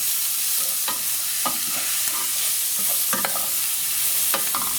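Steady sizzling of chopped tomatoes frying in hot bacon fat with garlic and onion, with a utensil scraping and knocking against the pan a few times as they are stirred.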